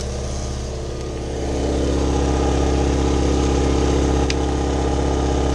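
Small generator engine running steadily with a low hum that grows louder about a second and a half in. A single short click sounds a little after four seconds in.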